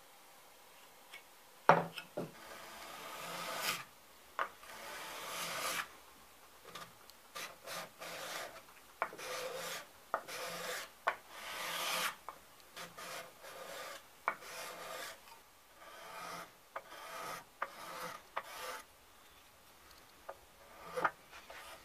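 Steel card scraper being pushed in repeated strokes across a rough old wooden board, each stroke a dry scraping rasp lasting up to about a second. A sharp click about two seconds in starts the strokes, and a few more clicks fall between them as the blade is set on the wood.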